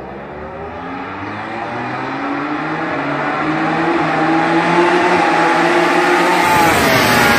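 MotoGP racing motorcycle's four-cylinder engine at high revs, growing steadily louder and creeping up in pitch as it accelerates down the straight, then dropping in pitch as it passes close by near the end.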